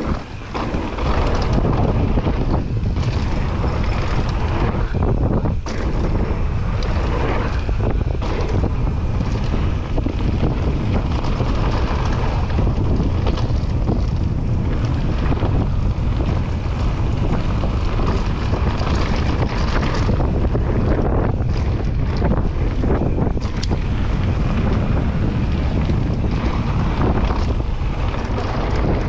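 Steady wind rushing over the microphone of a mountain bike riding down a dirt trail, picking up about a second in, with the rumble of tyres on dirt and scattered knocks of the bike over bumps.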